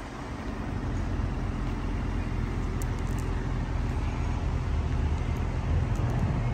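2022 Audi SQ5's turbocharged 3.0-litre V6 idling steadily, heard from behind the car at its quad exhaust tips. It grows a little louder over the first second.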